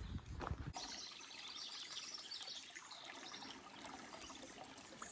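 Footsteps on a dirt trail for under a second, then a shallow creek trickling steadily over rocks.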